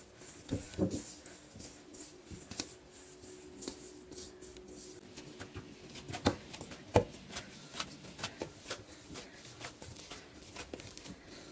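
Samosa dough being kneaded by hand in a stainless steel bowl: soft, irregular squishing and rubbing, with a few sharper knocks, the clearest about a second in and about seven seconds in.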